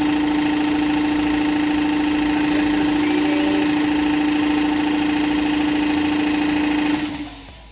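Air compressor running with a steady, loud motor hum, then shutting off about seven seconds in with a short hiss of released air.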